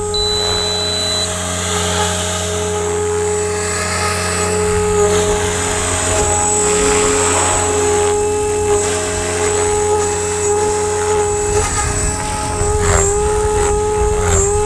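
RJX Vectron 520 radio-controlled helicopter hovering low: its motor and rotor blades give a steady whine that dips briefly in pitch a few times.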